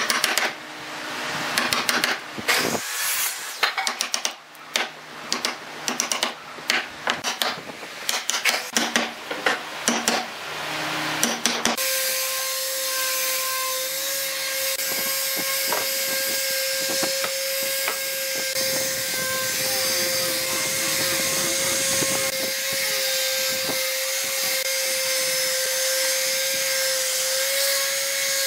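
Woodworking tools working wood: a run of short, irregular hand-tool strokes on wood, then after a sudden change a power tool running steadily with a constant whine.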